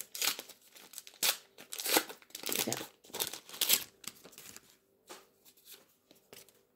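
Wrapper of an Adrenalyn XL football card pack being torn open and crinkled in a string of short rasping rips over the first four seconds, then a few faint rustles as the cards are handled.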